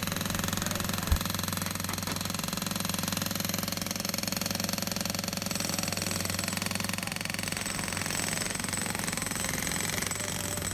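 Excavator diesel engine running steadily with a rapid, even rattle, and a single sharp knock about a second in.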